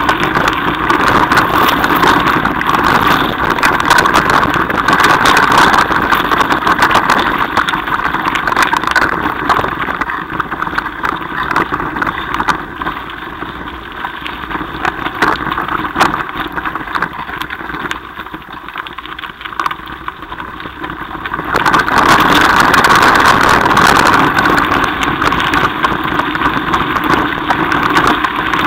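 Mountain bike riding over a gravel and dirt track: steady rushing tyre and wind noise with rapid rattling clicks from the bike, quieter for a stretch in the middle and loud again near the end.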